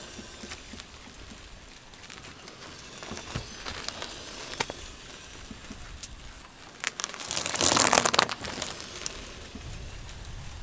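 Car tyre rolling over and crushing small toys on asphalt. Scattered faint clicks and crackles give way to one loud burst of crunching and crackling that lasts about a second, a little past the middle.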